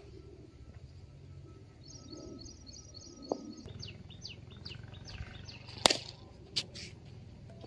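A cricket bat strikes a leather ball with one sharp knock about six seconds in, followed by a lighter knock. Birds call throughout: a run of quick chirps, then a series of short falling whistles.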